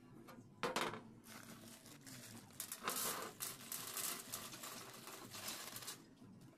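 Small aluminium blind rivets poured out of a plastic bag onto a hard surface: a sharp rattle about a second in, then several seconds of dense clinking with the bag crinkling, stopping near the end.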